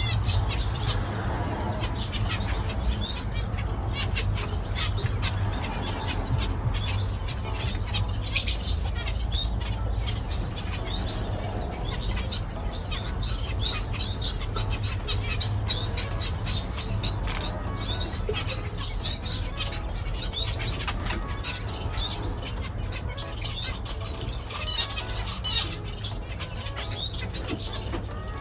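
Zebra finches in their cages calling: many short, high chirps, several a second, over a steady low hum.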